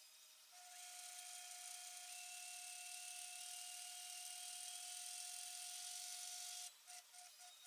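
A small power tool runs steadily with a constant whine and a hiss for about six seconds, then stops and is blipped briefly a few times.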